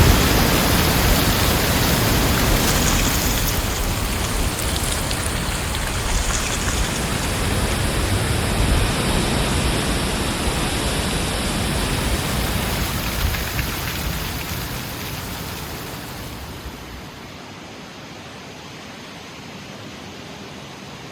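Heavy wind storm blowing as a steady rushing noise with a deep rumble. The gust eases off from about two-thirds of the way in, settling to a quieter, thinner rush near the end.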